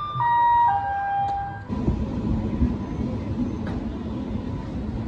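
Railway station public-address chime: three steady notes stepping down in pitch, the last held for about a second. It is followed by a steady station din with a low rumble.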